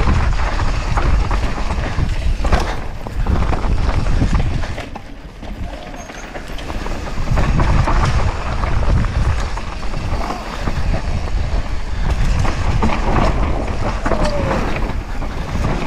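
Downhill mountain bike descending a dusty, rocky trail at speed: a steady low rush of wind on the microphone, with tyres crunching over dirt and stones and the bike rattling and clacking over bumps. It eases off briefly about five seconds in, then picks up again.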